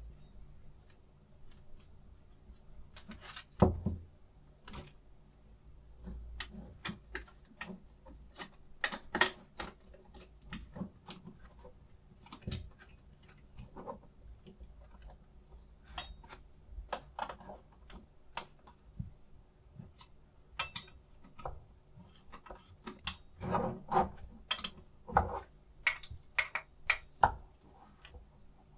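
Irregular small metallic clicks and taps of a knife clamp being handled as a kitchen knife blade is fitted in it and its screws are turned with a screwdriver; a denser run of louder clicks comes near the end.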